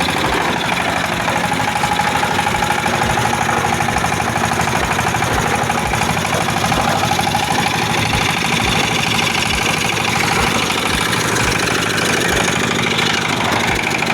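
Concrete mixer running steadily under test, with a steady whine and a regular low thump repeating about once or twice a second.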